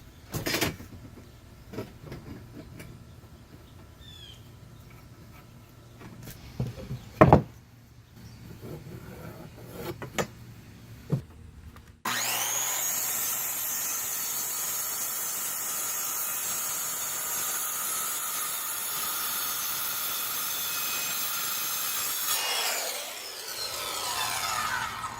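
Scattered knocks and clatter of wood and tools being handled, with one loud knock about seven seconds in. About halfway through, a power saw is suddenly heard running steadily through wood. Its motor winds down with falling pitch shortly before the end.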